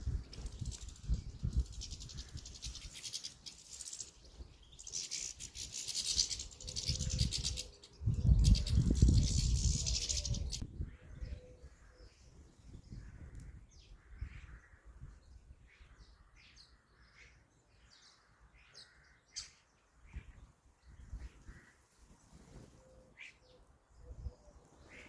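Small garden birds chirping in short, scattered calls at a feeder. For about the first ten seconds a loud rumbling and hissing noise covers them; it stops suddenly, and after that the chirps stand out clearly.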